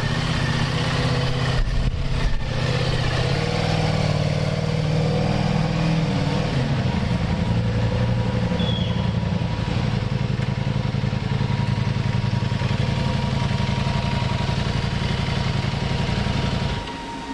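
Ducati Diavel for Bentley's V4 engine running at a steady idle. It drops away near the end, leaving a quieter steady whine.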